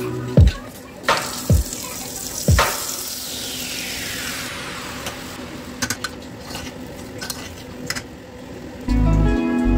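Whole spices sizzling in hot oil in an aluminium pressure cooker, a metal spoon knocking against the pot as they are stirred. About four seconds in, washed rice is tipped in and stirred, with softer spoon clicks. Music comes in near the end.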